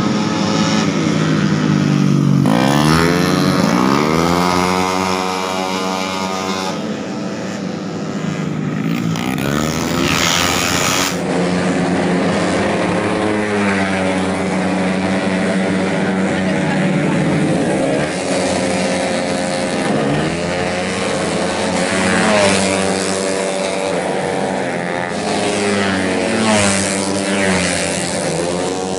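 Several tuned 131cc automatic racing scooters running at full race pace, with engine pitches rising and falling as they rev, shift and pass.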